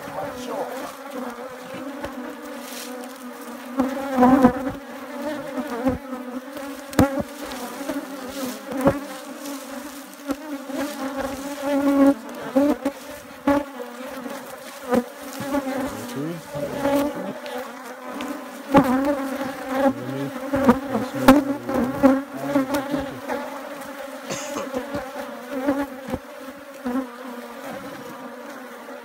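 Honeybees buzzing in numbers around an opened hive, a steady drone that rises and falls a little in strength. Scattered short knocks and clicks cut through it as the hive is worked with the smoker and hive tool.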